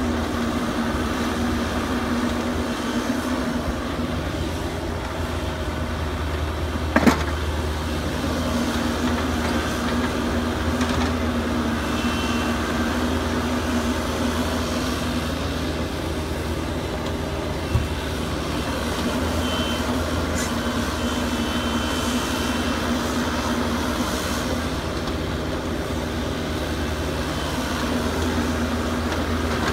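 Kubota KX121-3 mini excavator's diesel engine running steadily as it digs soil and swings loads into a dump truck. There is a sharp clank about seven seconds in and a lighter knock near eighteen seconds.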